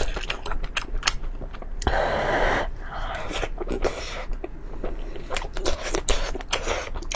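Close-miked eating sounds: wet chewing with frequent sharp mouth clicks and crackles, and a short burst of noise about two seconds in.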